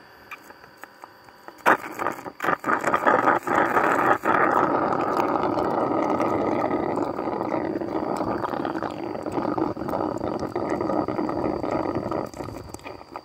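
Honey being sucked by mouth through a straw pushed into the wax-and-resin honey pots of a stingless-bee nest: a rough slurping noise starts about two seconds in, with a few clicks at first, runs for about ten seconds and stops shortly before the end.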